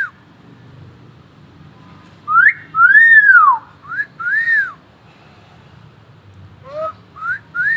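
Common hill myna whistling: three loud two-part phrases, each a short rising note followed by a longer note that rises and then falls. The second phrase is the longest and loudest. A short raspy call comes just before the last phrase.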